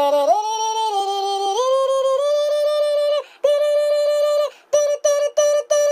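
A one-line melody: a swoop down into a low held note, then held notes stepping upward in pitch, then a string of short repeated notes on one pitch near the end.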